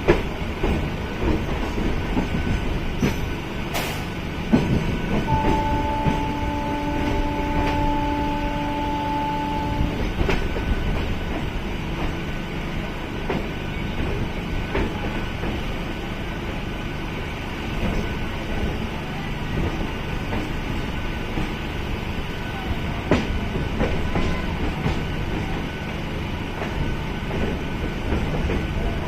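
MEMU electric multiple-unit train running along the track, a steady rumble and rattle of wheels and carriage with scattered clicks. About five seconds in, a horn sounds one steady note for about four and a half seconds.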